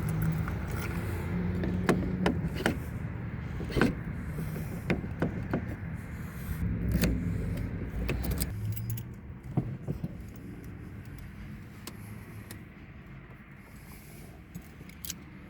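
Keys and a car key fob being handled: a run of sharp clicks and jangles over a low rumble for about ten seconds, then quieter with a few scattered clicks.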